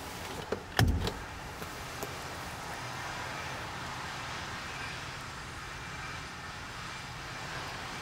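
A single heavy thump about a second in, with a few light clicks around it, over a steady low hum.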